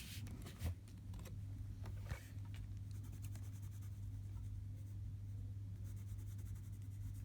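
Colored pencil scratching on paper in repeated strokes, laying in fur. A steady low hum runs underneath.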